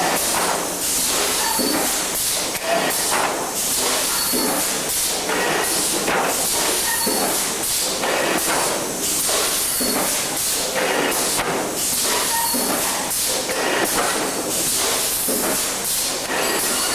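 Thermoforming machine running: a steady loud hiss with irregular clicks and knocks throughout.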